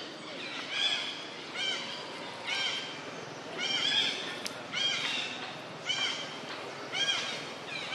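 An animal's short, high call repeated about once a second, each call a brief rising-and-falling cry.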